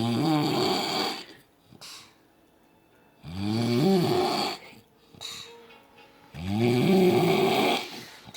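A man snoring in his sleep: three long snores about three seconds apart, each rising in pitch, with quieter breathing between.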